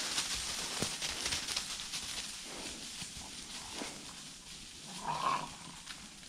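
Hunting hounds and footsteps rustling through dry leaf litter, fading over the first few seconds, then a hound gives one short bark about five seconds in.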